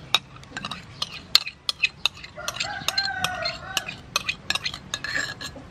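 Metal spoon clinking and scraping against a small bowl as chili sauce is scraped out onto pork ribs in a steel mixing bowl, in a quick run of sharp clicks. A rooster crows in the background, one long wavering call about two and a half seconds in.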